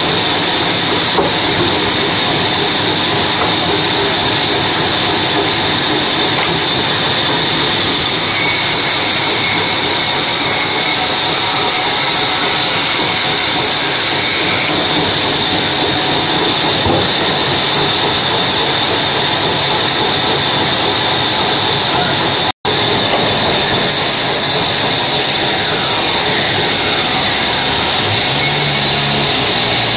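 Large sawmill band saw cutting through a teak log: a loud, steady hissing whir of the blade running through the wood over the hum of the machine. It cuts out for an instant once, about two-thirds of the way through.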